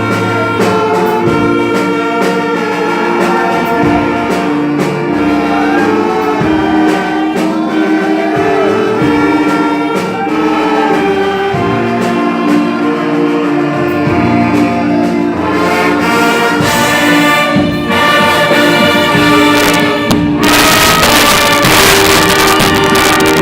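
Brass-led orchestra playing, with trumpets and trombones holding layered, sustained notes. Near the end a loud wash of noise joins the playing, spread across the high range.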